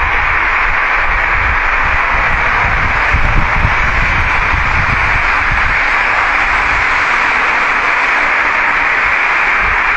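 Loud, steady hiss from a heavily amplified covert recording, with an uneven low rumble underneath and no clear sound standing out.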